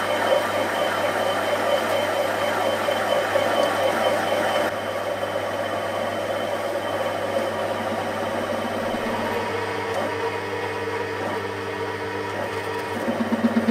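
Metal lathe turning a 1045 steel eccentric shaft while the cutting tool cuts a groove between the lobes: a steady motor hum under the scrape of the cut. The sound drops a little about five seconds in.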